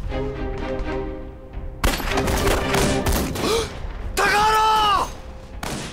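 Film battle sound effects over background music: a sudden burst of gunfire and blasts about two seconds in, a long cry rising and falling around four seconds in, then another sharp bang near the end.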